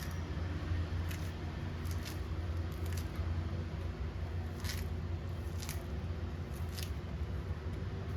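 About six short, crisp cutting sounds spaced roughly a second apart, a blade going through vegetables during food prep, over a steady low hum.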